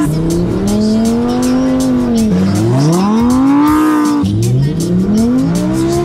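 Lamborghini Huracán Performante's V10 revving up and down while the car spins donuts in snow. Its pitch swells and eases several times, with one steep climb from about two seconds in that drops sharply near four seconds. Background music with a steady beat plays underneath.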